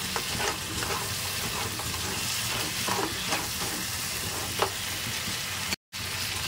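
Crab curry sizzling in a granite-coated wok while a slotted spatula stirs and scrapes through the crab pieces, with short scrapes every second or so over a steady hiss. The sound breaks off briefly near the end.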